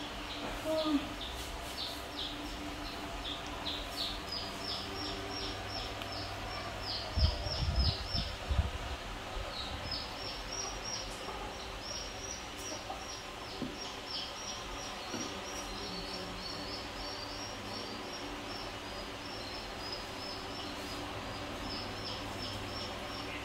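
A small bird chirping in long runs of short high notes, several a second, over steady background noise. A few dull low thumps sound about seven to nine seconds in.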